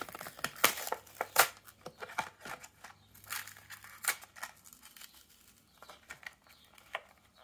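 Clear plastic blister of a Hot Wheels card being pried and peeled off its cardboard backing: irregular crackles, clicks and tearing of plastic and card, busiest in the first couple of seconds and thinning out after about five seconds.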